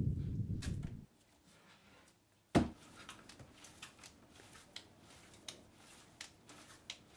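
A lump of clay slammed down onto a wooden bench with one heavy thud about two and a half seconds in, then soft scattered taps and slaps of hands wedging the clay. A low rumbling noise fills the first second.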